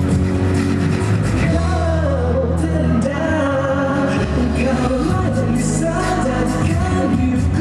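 A pop song with a singing voice over a steady band accompaniment.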